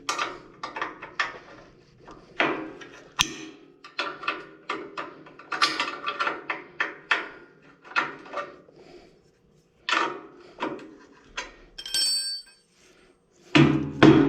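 Irregular metallic clanks, clicks and taps of hand tools on the wood chipper's chip-size blade and its bolts as the blade is adjusted, about one or two a second. A brief high ringing comes near the end.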